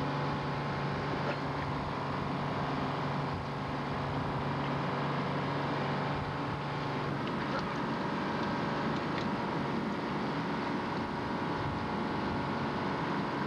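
Fishing boat's engine running steadily, a constant drone; one low hum in it drops away about halfway through.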